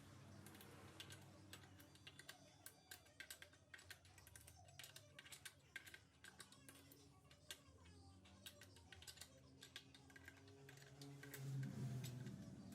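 Faint, irregular light clicks and taps of transmission parts being handled during an automatic gearbox rebuild. A low hum rises near the end.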